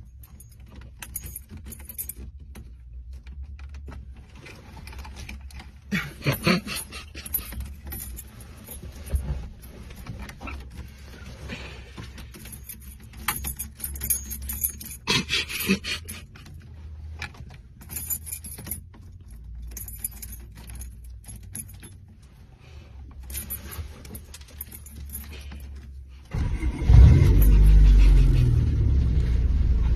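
Car keys jangling and clicking against the steering column as a hand works the key in the ignition. About 26 seconds in, a loud, deep engine rumble comes in suddenly.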